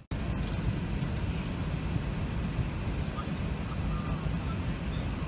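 Steady low rumble of an Airbus A380 heard inside the passenger cabin while the aircraft is on the ground with its engines running, with faint ticks of cabin rattle.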